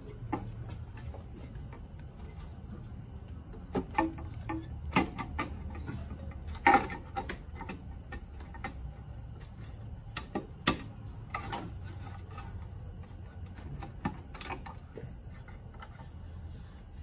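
Scattered clicks and knocks of a Mazda Miata's valve cover being worked loose and lifted off the twin-cam engine, metal on metal, over a steady low hum. The loudest knock comes a little under seven seconds in.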